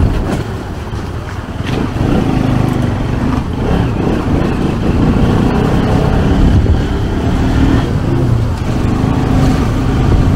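Engine and road noise of a vehicle driving slowly along a street, a steady low rumble with a wavering engine note.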